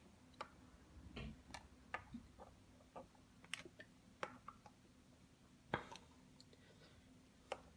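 Small plastic toy chargers being set down and stood up in a row on a hard surface: faint, irregular light clicks and taps, about a dozen, the sharpest a little before six seconds in.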